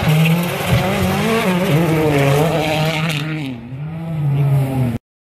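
Rally car engine revving hard, its pitch rising and falling through gear changes as the car slides through the stage, with tyre noise. It fades after about three and a half seconds, revs briefly once more, and cuts out abruptly near the end.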